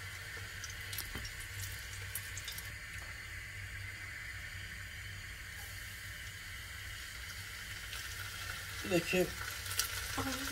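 Cheese frying in hot oil in a frying pan: a steady sizzle as floured braided string cheese cooks, with a few light clicks of metal tongs.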